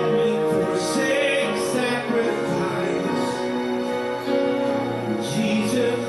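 Church worship music playing steadily, with sustained notes and chords.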